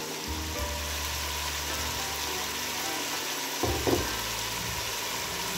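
Chicken and green capsicum strips sizzling as they fry in a pot, a steady hiss over a low steady hum, with one short louder sound a little under four seconds in.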